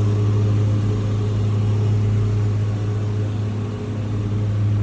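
Steady low mechanical hum, one even droning tone with a few higher overtones that holds unchanged throughout.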